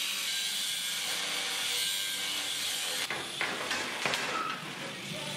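Oxy-acetylene cutting torch hissing steadily as it cuts off a steel plow mounting ear. About three seconds in, the steady hiss gives way to a rougher, uneven noise with sharp clicks.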